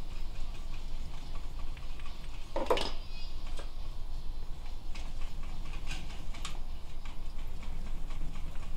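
Harley-Davidson Dyna's chrome muffler being twisted and worked loose by hand on the exhaust pipe, with one short, louder scrape about three seconds in and a few light clicks later, over a steady low hum.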